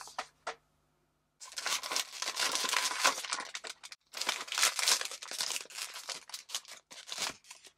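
Silver foil blind-box bag crinkling loudly as it is handled and torn open by hand, in two long stretches with a short break about four seconds in, after a few light clicks.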